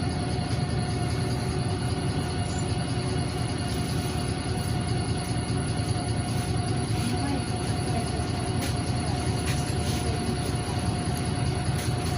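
Inside a NefAZ 5299 city bus under way: steady low rumble of its Cummins ISBe diesel engine and road noise, with a few steady high tones over it and occasional faint ticks.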